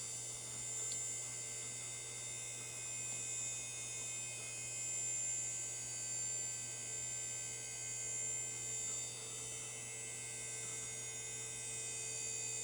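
Steady electrical hum of a running Power Macintosh 8100 during startup, its fan and power supply giving a low drone with thin high tones above it.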